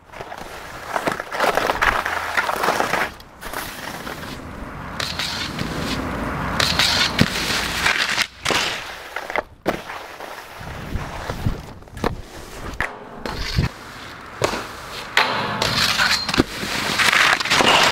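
Skis scraping and sliding over packed snow, in loud rough bursts with short breaks between them, with a few sharp knocks and clatters.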